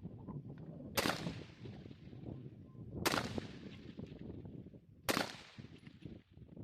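Three rifle shots about two seconds apart, each trailing off in a long echo.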